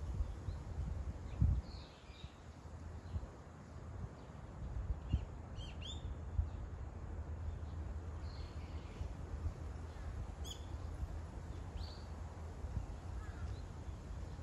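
Outdoor ambience: short bird chirps and calls every few seconds over a steady low rumble.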